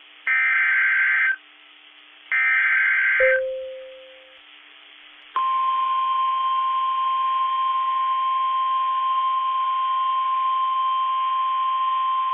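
Emergency Alert System SAME header data bursts, two harsh screeching digital bursts about a second each and a second apart. About two seconds later comes the steady single-pitch 1050 Hz NOAA Weather Radio warning alarm tone, which starts abruptly and holds.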